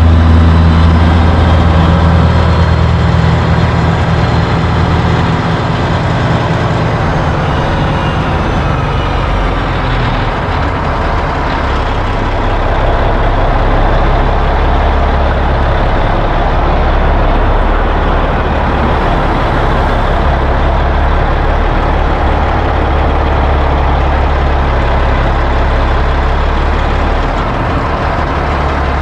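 A semi truck's diesel engine running as the truck drives, its low drone strongest in the first few seconds, under a steady rush of road noise.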